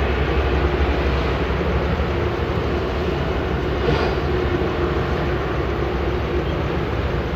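Steady drone of traffic on a nearby toll road: an even rumble of passing vehicles with no single one standing out, swelling slightly about four seconds in.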